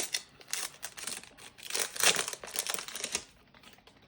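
Foil Pokémon booster pack wrapper crinkling in the hands, a run of irregular crackles that dies down near the end.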